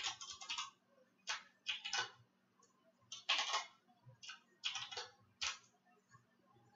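Typing on a computer keyboard in short, irregular bursts of keystrokes as a line of code is entered.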